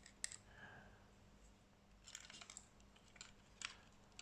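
Near silence, with a few faint, short clicks and light taps of small objects being handled: a pair at the start, a cluster about two seconds in, and a couple more near the end.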